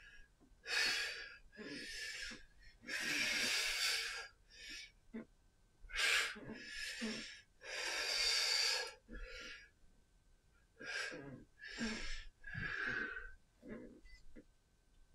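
A man breathing hard from exertion while swinging a clubbell: a string of loud, forceful breaths and gasps, about one every one to two seconds.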